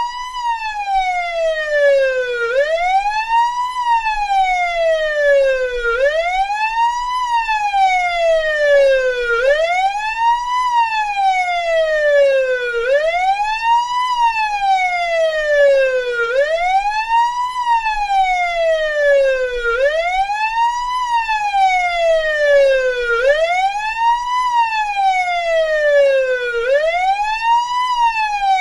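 Russian police car electronic siren sounding in wail mode: a rasping tone that rises quickly and falls more slowly, repeating steadily about every three and a half seconds.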